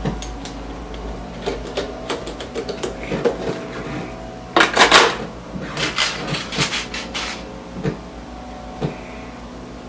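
Roller skate parts being handled and fitted by hand: scattered clicks and clinks of wheels, bearings and metal hardware, with a louder clatter about five seconds in.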